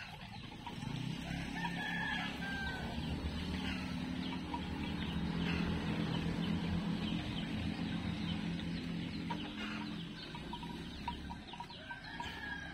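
Chickens clucking and calling over the low hum of a passing engine that swells and fades over about ten seconds.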